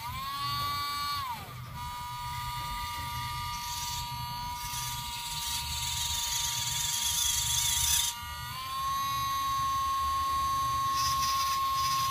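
Small electric motor and gearing of a homemade miniature toy tractor whining as it drives. It is a steady high whine that starts suddenly, drops in pitch about a second in and rises a little later on. A rough hiss joins it for a few seconds in the middle.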